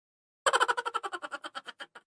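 High-pitched, sped-up 'chipmunk' cartoon laugh: a quick run of about fifteen 'ha' pulses that starts about half a second in, then slows and fades away.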